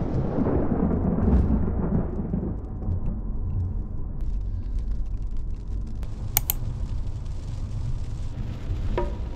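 Thunder rumbling and fading over the first two to three seconds, over the steady low drone of a car driving on the highway. A sharp click comes about six and a half seconds in.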